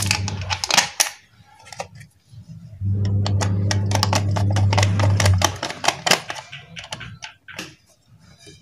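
Plastic electricity meter casing and a screwdriver clicking and knocking as the cover and box are handled and fitted back on. A steady low hum comes in twice, at the start and again from about three to five and a half seconds.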